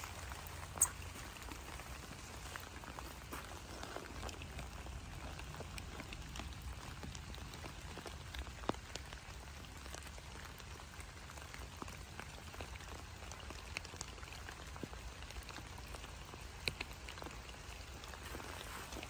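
Light rain: steady pattering with scattered drops ticking on surfaces, and a few sharper drops now and then, over a faint low rumble.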